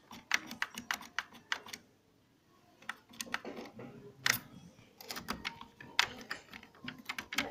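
Irregular plastic clicks and ticks from the internal mechanism of a Canon iP4980 inkjet printer being moved by hand, several a second, pausing briefly about two seconds in.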